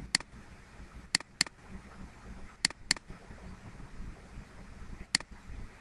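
Computer mouse clicking as folders are opened in a file dialog: six sharp clicks, four of them in two quick double-clicks, over a faint steady hiss.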